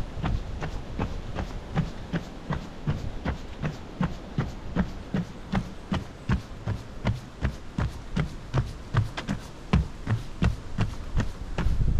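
Running footsteps on a boardwalk, an even beat of about three footfalls a second, each a dull thud with a sharp click.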